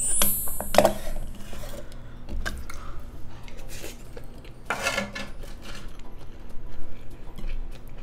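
A wooden spoon scraping and clinking in a stainless steel rice container, followed by scattered clicks and knocks of utensils against dishes and the grill tray. The loudest knock comes about five seconds in.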